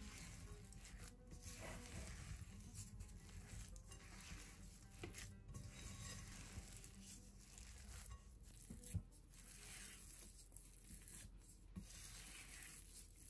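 Faint gritty scraping and rustling of a silicone spatula stirring and pressing a crumbly ground-peanut dough around a bowl, with one sharper knock about two-thirds of the way through.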